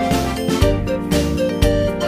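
Upbeat background music with a steady beat and bright melodic notes.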